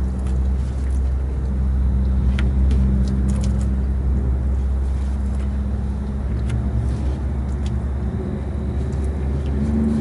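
An engine idling steadily with a constant low hum, with a few faint light clicks now and then.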